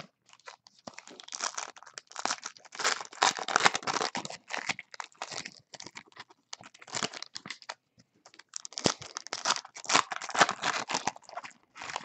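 Foil wrappers of Donruss basketball card packs being torn open and crinkled by hand, in irregular spells of rustling with a brief lull a little past the middle.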